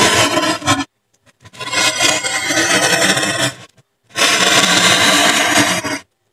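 Fine metal tip of a pen-like tool scraping grooves into a white foam sheet, in three stretches of scraping: about a second, then two, then two, with short silent breaks between.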